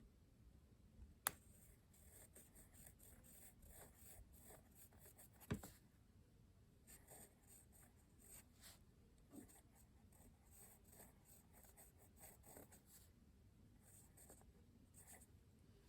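Faint scratching of a freshly sharpened Dixon Ticonderoga pencil writing on notebook paper in many short strokes, with a sharp tap about a second in and another near the middle.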